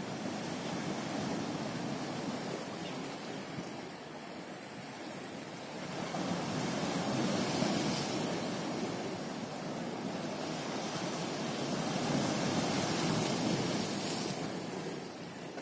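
Sea waves washing against the shore, with wind on the microphone. The surf swells louder twice, about six seconds in and again past the middle.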